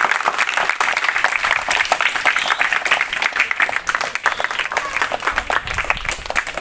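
Applause from a seated crowd of women and children, many hands clapping in a dense, irregular patter.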